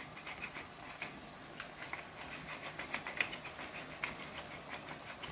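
Beef liver cooking in a pot, giving off faint, irregular crackles and small pops over a low sizzle.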